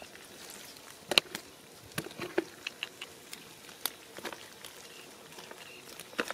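Scattered light taps and slaps of small fish flopping on dry, cracked mud and being picked up by hand and dropped into a plastic bucket, the loudest tap just over a second in.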